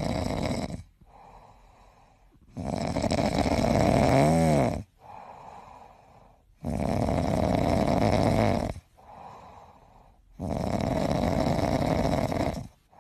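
A sleeping grey cat snoring: loud, rasping snores come about every four seconds, each lasting around two seconds, with quieter breaths in between. One snore in the middle has a brief fluttering, pitched rattle.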